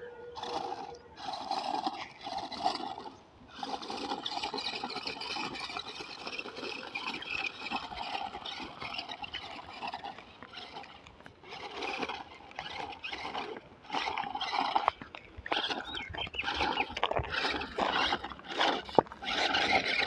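Toy 4x4 RC rock crawler's electric motor and gearbox whining in stop-start bursts as it is driven over cracked dry mud, the pitch shifting with the throttle.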